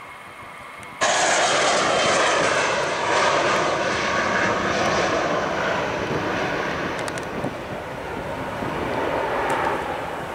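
Airbus A320 airliner's jet engines at takeoff thrust as it lifts off and climbs away. The loud jet roar comes in abruptly about a second in, then slowly fades.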